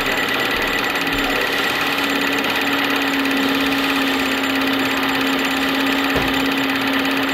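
Film projector running: a steady mechanical whir over a constant low hum.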